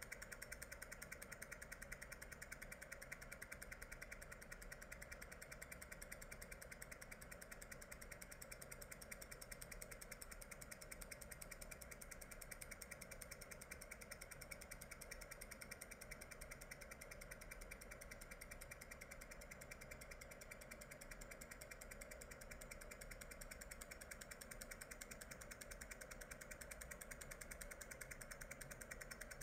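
Near silence with a faint, steady mechanical hum that has a fast flutter.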